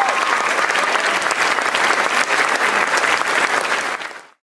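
Audience applauding, cut off abruptly near the end.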